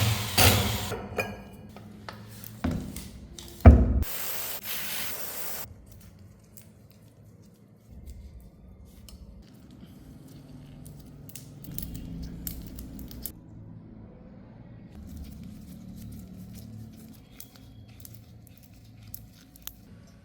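Hand work on a motorcycle in a workshop: a sharp knock, then a short hiss, followed by faint scattered clicks and handling noises.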